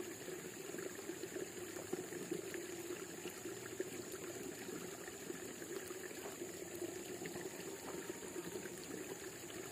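Running water trickling steadily, an even, unbroken babble with no strokes or rhythm.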